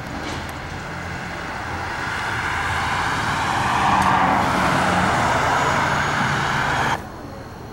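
A passing vehicle: a steady rushing noise swells to its loudest about halfway through, holds, then cuts off abruptly near the end.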